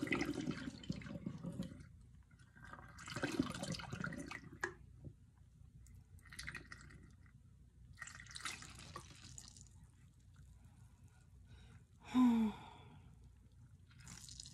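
Fizzy kombucha pouring from a plastic pitcher through a plastic funnel into a glass swing-top bottle, in about four short pours with pauses between them while the foam settles in the neck. Near the end, a short voiced sound with falling pitch, like a sigh, is the loudest thing.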